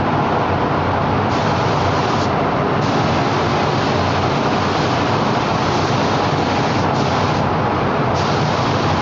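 Steady loud rush of a paint spray booth's airflow, with the high hiss of a paint spray gun cutting in and out several times as spraying starts and stops.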